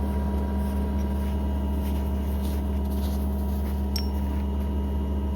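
An idling engine gives a steady low hum, and a single sharp metallic clink rings out about four seconds in.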